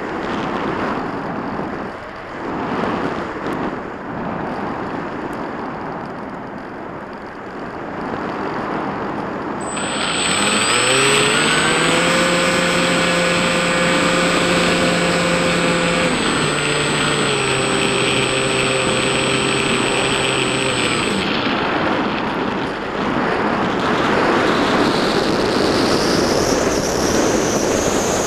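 Wind rushing past a small foam RC airplane with its electric motor off. About ten seconds in, the electric motor spins up to a steady whine with a thin high tone above it, drops to a lower pitch partway through as the throttle is eased, and winds down about eleven seconds later, leaving wind noise that swells near the end.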